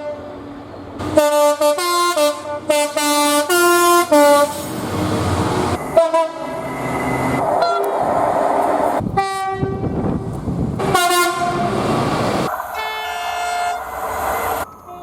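Train horns sounding runs of short blasts that step between different pitches, then another run, and near the end a longer held horn chord. Between the runs there is the loud rush of a train going by. The sound cuts off abruptly just before the end, where one clip gives way to the next.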